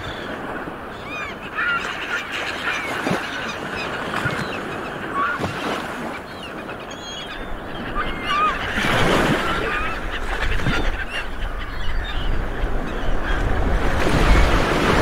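Sea waves breaking and washing in, a steady rush of surf that swells about halfway through and again near the end, with birds giving many short calls over it.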